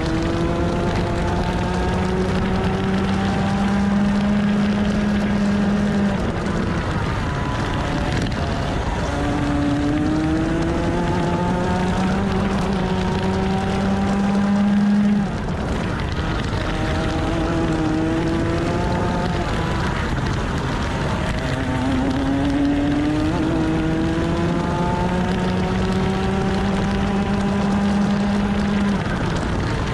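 Rotax 125cc two-stroke TaG kart engine at racing speed, heard from on the kart: its pitch climbs steadily as it accelerates, then drops away when the driver lifts off, about four times, over a steady rush of noise.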